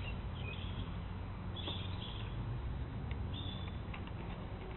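Outdoor background: a few faint, short bird chirps over a steady low rumble.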